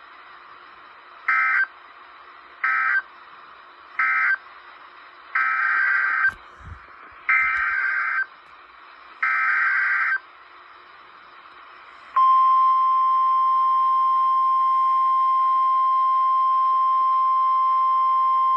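Emergency Alert System SAME data bursts over weather radio: three short buzzy bursts, the end-of-message code of the warning just read, then three longer bursts of about a second each, the header of the next warning. About twelve seconds in, the steady 1050 Hz NOAA Weather Radio warning alarm tone starts and holds over faint radio hiss.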